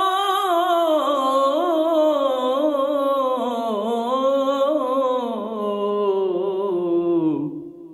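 Male voice singing a long held, wordless line of an Urdu ghazal, ornamented with quick turns. It sinks slowly in pitch and dies away near the end. No instrument is heard with it.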